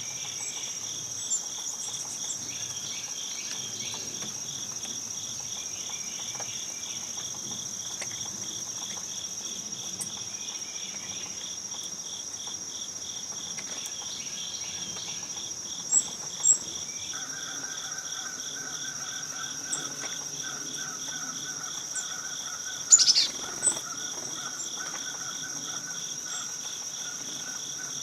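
Insect chorus of crickets and katydids: a steady high trill over a rapidly pulsing lower trill, joined a little past halfway by a lower, steady trill. Two short bird chirps come a little past halfway, and a louder falling bird call near the end.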